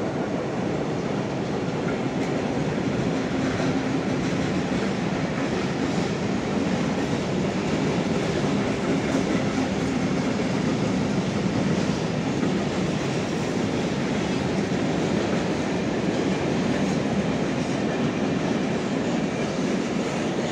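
Freight train of tank wagons and open wagons rolling past, a steady noise of wagon wheels running on the rails.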